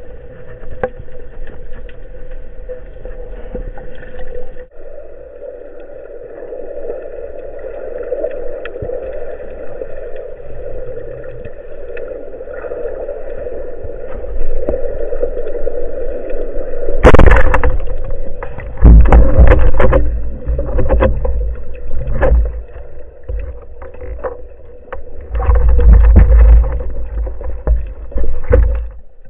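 Underwater recording in shallow surf: a steady wash of moving water, then from about 17 seconds in heavy surges of churning water as waves break over the shallows, loudest in two bouts near the end.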